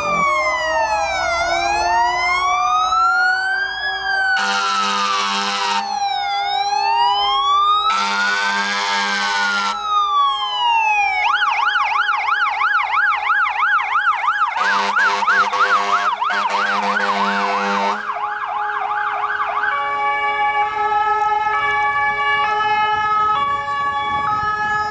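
Fire engine sirens sounding: a slow rising-and-falling wail, changing about eleven seconds in to a fast yelp, and near the end to a stepped alternating tone. Three long horn blasts sound over them.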